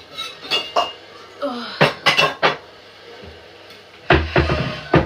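Dishes and cutlery clinking and clattering as food is served onto plates: scattered sharp knocks, a quick cluster about two seconds in, and a heavier clatter with a dull thud about four seconds in.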